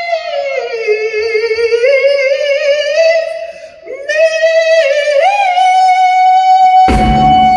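A female lead vocalist sings long held notes and short runs almost alone, with a brief break a little after the middle. Near the end the full band, with drums and electric guitar, comes in.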